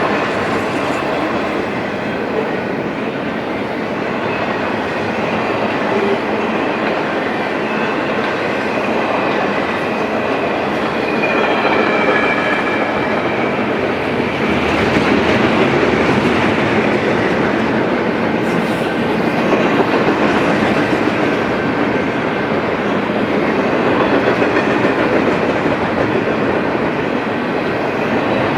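Freight train rolling past at close range: a steady rumble with the wheels clicking over the rail joints, and a faint high squeal about twelve seconds in.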